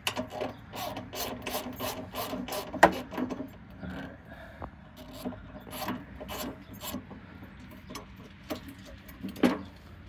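A socket ratchet clicks in quick, even strokes, about four to five clicks a second, as a corroded bolt on a motorcycle's saddlebag mounting bracket is backed out. Scattered clicks and metal scraping follow as the loosened bolt is unthreaded.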